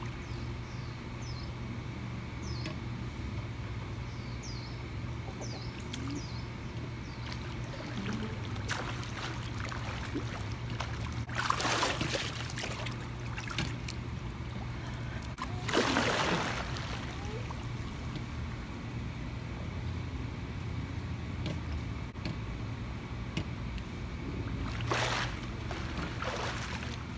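Swimming-pool water splashing as a swimmer moves in it, loudest about twelve, sixteen and twenty-five seconds in, over a steady low hum.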